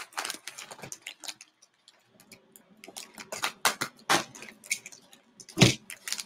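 Hands opening a mail package: irregular crackling and clicking of the packaging being handled and pulled open, with one heavier thump a little before the end.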